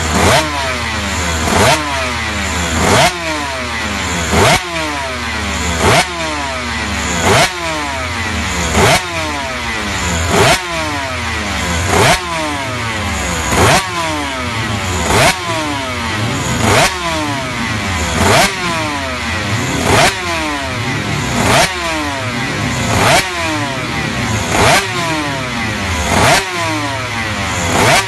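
Cagiva C594 500cc two-stroke V4 Grand Prix engine warming up, its throttle blipped about every second and a half: each blip rises sharply in pitch, then the revs fall back in a long downward glide before the next.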